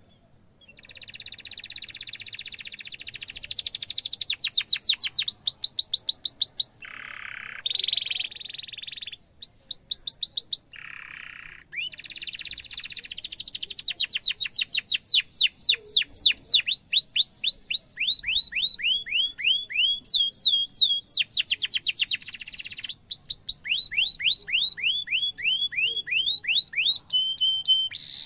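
Domestic canary singing a long song: buzzy rolling trills and fast runs of repeated falling 'cuit cuit' whistles, with two brief breaks about a third of the way in.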